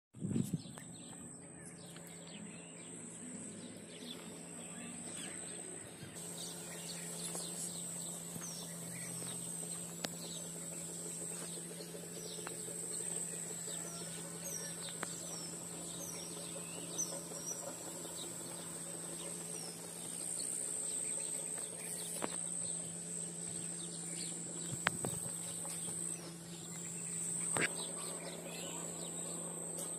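Outdoor ambience: a steady high-pitched insect drone with small birds giving many short, falling chirps, over a faint low steady hum and a few clicks.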